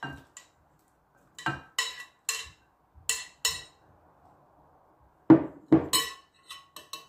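Glass kitchen bowls and a utensil clinking: five sharp ringing taps as chopped onion is knocked out into a glass bowl of tomato purée, then a few louder knocks and lighter clicks about five seconds in as bowls are moved on the counter.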